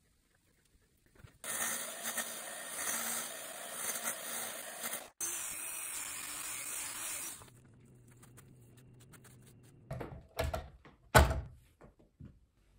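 Heat gun blowing a steady hiss over freshly poured epoxy resin to bring up and pop air bubbles, with one brief break partway through. Near the end, a few loud knocks as the resin panel is handled.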